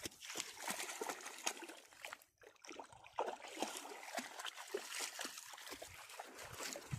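Golden retrievers splashing about in water: a busy run of irregular splashes and sloshing, with a brief lull about two seconds in.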